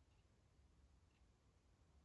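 Near silence: faint room tone with a low hum and soft ticks about once a second.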